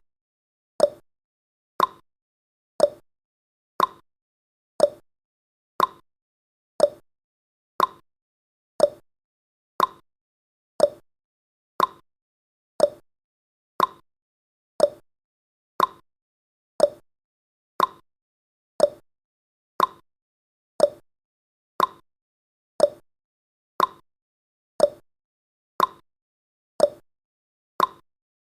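Countdown timer's clock-ticking sound effect, one tick a second, alternating between a lower and a higher tick like a tick-tock.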